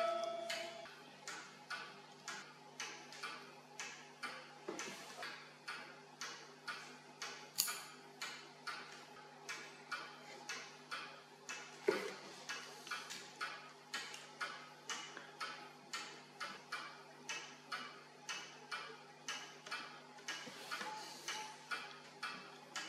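Clock ticking steadily, about two ticks a second, over a faint steady low drone, with two sharper clicks about eight and twelve seconds in.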